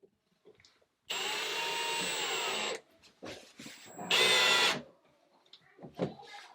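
Electric screw gun driving screws in two runs, a steady motor whine of under two seconds followed by a shorter, louder burst, with small knocks of handling in between.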